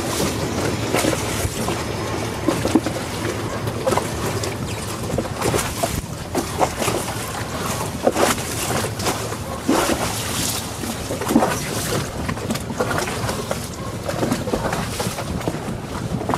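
Aboard a moving ferry: steady low engine hum with irregular splashes of choppy water against the hull.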